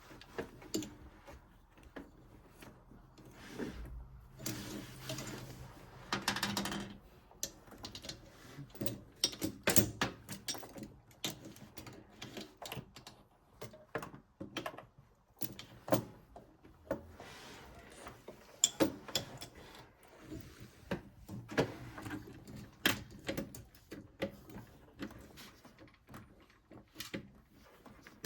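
Irregular clicks, taps and clatter of hand tools and parts being handled during washing-machine repair, with a few short scraping or rustling stretches.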